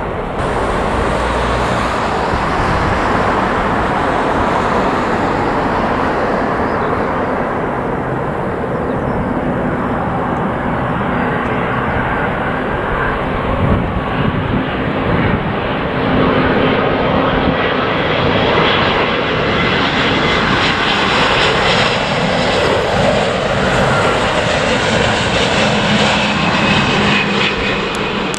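Jet airliner's engines making a loud, steady rush throughout, with a high whine that grows stronger in the second half.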